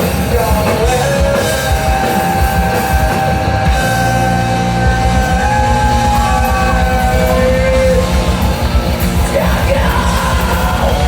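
A rock band playing loud, with distorted guitars, bass and drums and shouted vocals. Long notes are held over the band through the middle of the passage.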